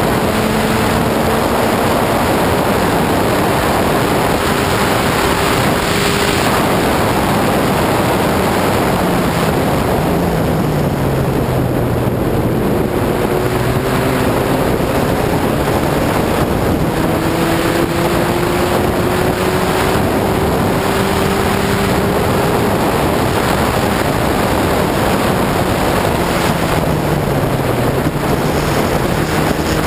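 Lotus 61 Formula Ford race car's engine running at racing speed under heavy wind rush, its pitch climbing slowly through long pulls and dropping sharply about ten seconds in and again near the end as it brakes and downshifts.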